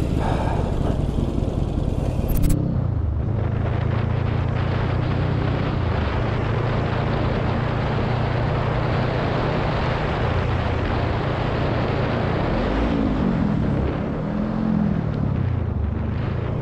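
Motorcycle engine running steadily under way, with wind and road noise, heard from the rider's position on the bike. Its pitch briefly rises and falls twice near the end. About two and a half seconds in, the sound changes abruptly from a different recording.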